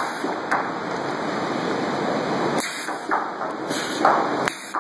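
Handheld stud welding guns firing steel studs onto a steel plate: hissing, crackling arc noise broken by about four sharp cracks as welds strike and the studs plunge.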